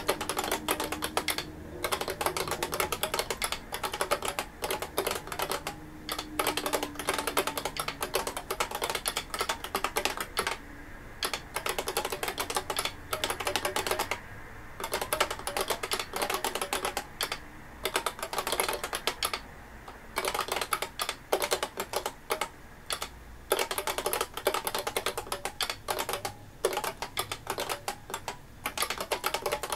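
IBM 5251 beam spring keyboard being typed on at a steady pace, a fast run of key clacks with short pauses every few seconds between phrases.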